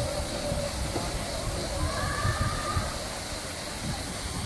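Outdoor ambience of a busy swimming pool: faint, distant chatter of bathers over a steady low rumble of wind on the microphone.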